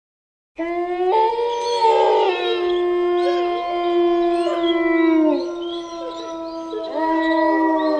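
Wolves howling together, several long held howls at different pitches overlapping, some gliding up and down. The howling starts suddenly about half a second in, after silence.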